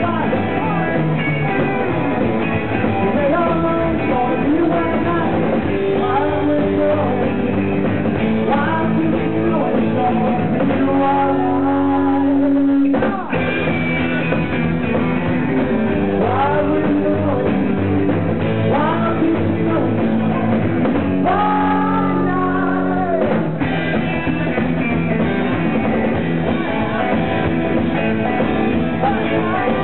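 Live rockabilly band playing: a male singer over electric guitars, slapped upright double bass and a drum kit. The music cuts out for a moment about halfway through, then carries on.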